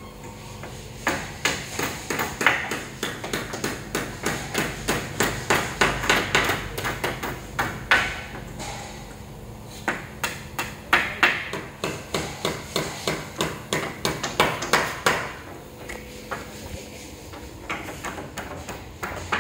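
Hand hammering up on a roof's battens and rafters: runs of sharp hammer blows about three a second, with a short pause partway through, then thinning to a few scattered knocks near the end.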